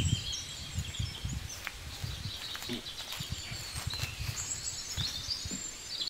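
Birds chirping and calling in short, high, quick notes over an uneven low rumble of thumps, the sound of caught white birds being held by the wings and flapping.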